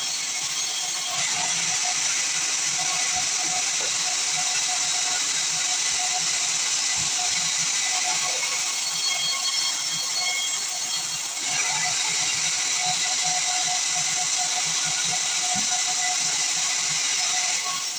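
Sawmill bandsaw cutting through a pine log: a steady high hiss of the blade in the wood, stepping up in level about a second in and again about eleven seconds in.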